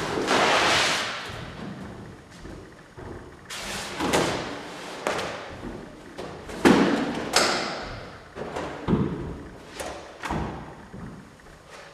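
A series of irregular thumps and knocks, each with a short noisy decay, the loudest just under seven seconds in.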